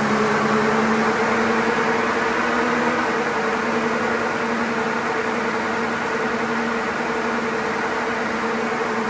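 Turbocharged Land Rover Discovery 2 on a rolling-road dyno, running at a constant speed: a steady drone with several held tones and no revving.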